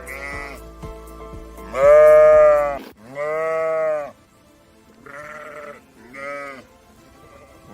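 Bleating animal calling four times: two long, loud bleats, then two shorter, softer ones, with music under the first couple of seconds.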